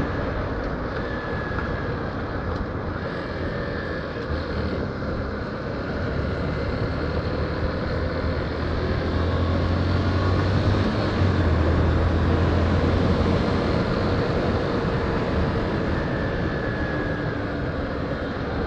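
Yamaha Fazer 150 motorcycle's single-cylinder engine running while riding, mixed with wind and road noise; the low rumble grows louder from about nine to thirteen seconds in.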